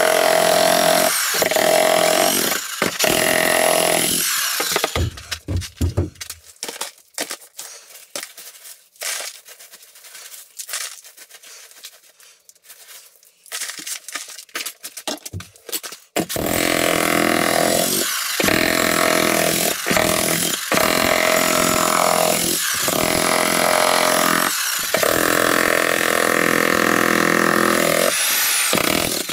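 Electric demolition hammer (jackhammer) chiselling through a concrete floor slab, running in stretches of a few seconds with short stops between. For about ten seconds in the middle the hammer is silent. During that pause, broken concrete chunks knock and clink as they are handled and put into a bucket.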